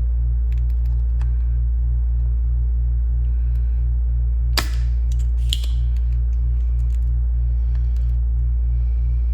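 Desoldering work on circuit-board solder joints: a steady low hum with a regular throb of about four pulses a second, and two sharp clicks about a second apart near the middle.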